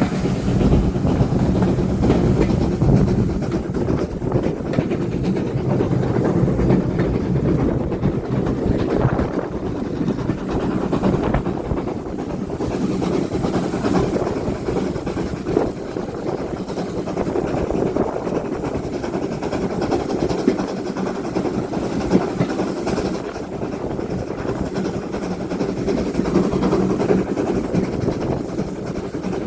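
Steam train on the Bluebell Railway running steadily, a continuous rumble with a few sharp clicks.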